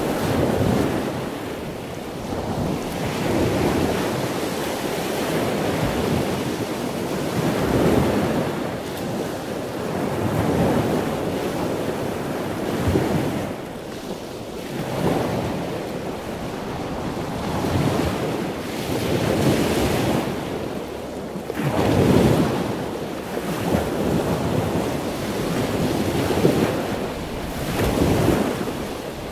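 Open sea washing alongside a ship, the noise of the water swelling and easing every few seconds, with wind buffeting the microphone.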